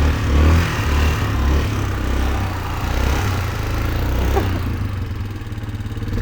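Yamaha Kodiak 450 ATV's single-cylinder four-stroke engine running as the quad is ridden, the throttle rising and falling. It eases off to a softer, even pulsing about five seconds in.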